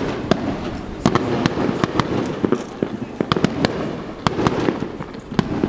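Fireworks finale barrage: shells bursting in rapid succession, many sharp bangs and crackles several a second over a continuous rumble.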